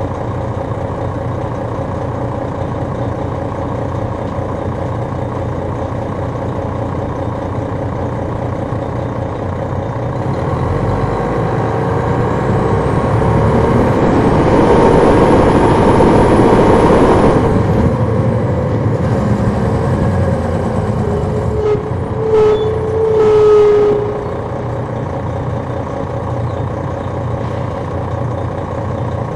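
Detroit Diesel Series 60 diesel engine of an MCI D4000 coach, heard on board, running steadily. From about ten seconds in it grows louder and its pitch shifts, loudest for a few seconds, then eases back. A couple of short, louder sounds come near the end before it settles again.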